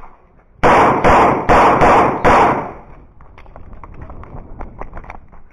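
Three shots from a CZ 75 Shadow 9 mm pistol, about three quarters of a second apart, each ringing out briefly. They are followed by a run of faint clicks and scuffs.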